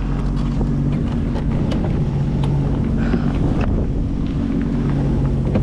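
Engine of a 2022 Sea-Doo FishPro Sport 170 jet ski running steadily with an even hum, with wind buffeting the microphone.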